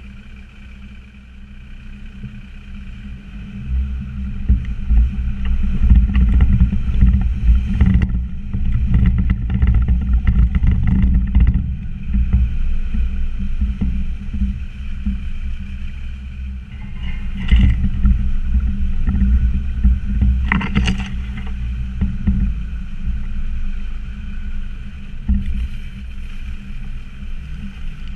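Land Rover Discovery Td5's five-cylinder turbodiesel engine working hard on a rough off-road track, growing louder a few seconds in. The vehicle clatters and knocks as it goes over bumps.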